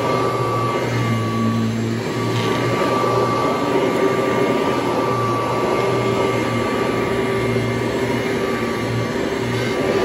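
Kirby Heritage upright vacuum cleaner running steadily while pushed over a rug, its motor holding a constant whine with a low hum beneath.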